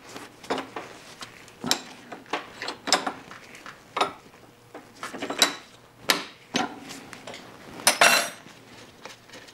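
Irregular sharp metallic clicks and clinks of a 24 mm combination wrench fitted to the oil pressure switch on an oil filter housing clamped in a bench vise, as the switch is loosened. Near the end there is one longer, louder metal clatter.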